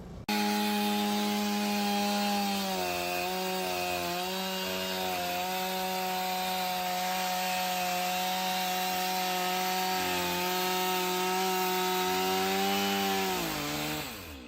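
Petrol chainsaw running at high revs while cutting into timber, its pitch sagging briefly a few times under load. Near the end the revs fall away as the throttle is released.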